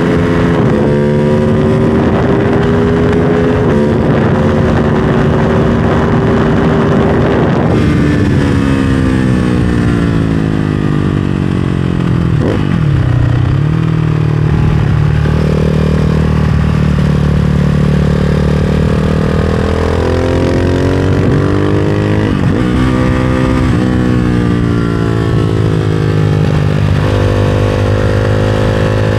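Ducati Hypermotard 698 Mono's single-cylinder engine through a full race exhaust, revving up hard with two upshifts in the first several seconds. It then falls in pitch as the bike slows, with a few quick sharp revs on downshifts, holds steady, and revs up again near the end.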